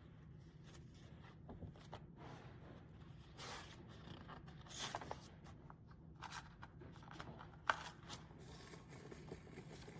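Faint handling noise: scattered light clicks, taps and rustles, one sharper click about three-quarters of the way through, over a low steady hum.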